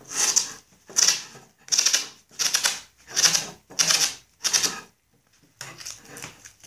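Masking tape being pulled off the roll in short, even pulls as it is wound round a Snapper clutch assembly to centre it, about seven strokes at roughly one and a half a second, fainter after about five seconds.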